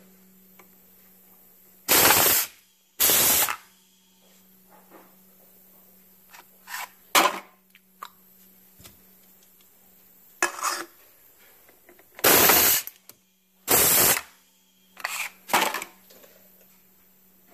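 Homemade pneumatic can crusher working twice. Each cycle gives a sharp blast of compressed air as the cylinder drives down on an aluminium can, then a second blast about a second later as it retracts. Lighter clicks and clatters come between the two cycles.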